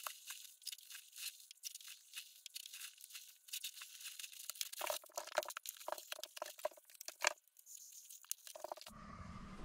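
Crinkling and crackling of a plastic ground sheet and an egg-crate foam sleeping pad being spread out and handled, in quick irregular crackles. Near the end it cuts to a steady low hum.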